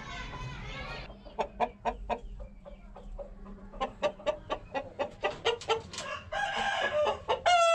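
Domestic chickens clucking in a rapid run of short clucks, about four a second, followed near the end by a louder, drawn-out squawking call.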